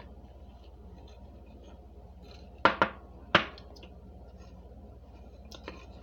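Metal spoon digging into a glass bowl of hard, crunchy white chunks: a few faint crackles, then two sharp clinks close together about two and a half seconds in and a third a moment later, with a couple of lighter clicks near the end.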